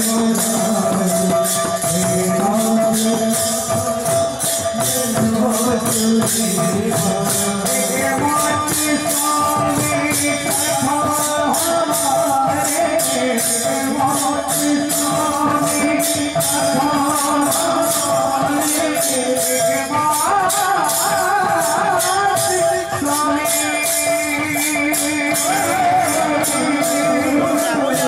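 Odia devotional kirtan music: small brass hand cymbals clash in a steady, fast rhythm under held instrumental tones and male voices singing the chant.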